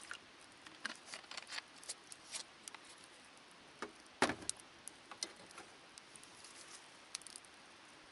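Wood campfire crackling in a metal fire stand: scattered sharp pops and snaps, with one louder knock about four seconds in.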